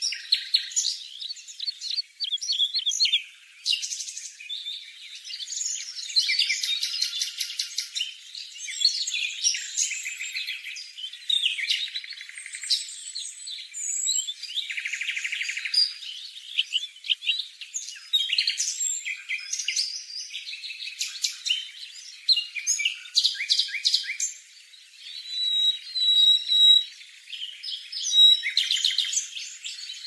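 Small birds chirping and twittering: a dense run of high, quick calls and rapid trills with a couple of short lulls. These are not the low coos of the zebra dove.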